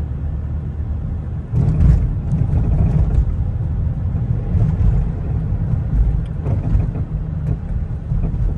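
Steady low rumble of a Chevy Traverse with a swapped-in 5.7-litre V8 and stock exhaust driving along, engine and road noise heard from inside the cabin with the windows down. It grows louder about a second and a half in.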